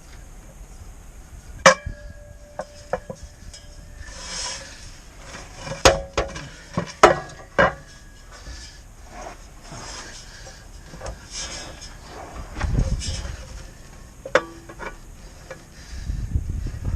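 Metal clinking and knocking from hand tools and drivetrain parts being handled, with some rubbing and scraping in between. A few sharp, briefly ringing strikes stand out, most of them between about six and eight seconds in, and a low rumble comes in near the end.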